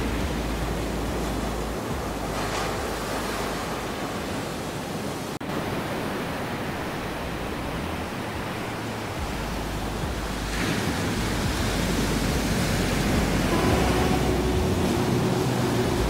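Ocean surf breaking and washing up a sandy beach: an even rushing hiss that swells about two and a half seconds in and again about ten and a half seconds in. A faint steady tone joins near the end.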